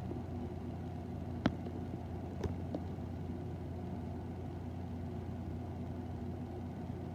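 Steady low hum and rumble, with two sharp clicks about a second apart, the first about a second and a half in.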